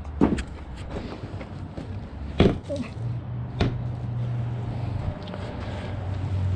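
Several sharp knocks of hand tools working on a Suzuki DR650's rear axle and chain adjuster, the loudest about two and a half seconds in, over a low steady hum.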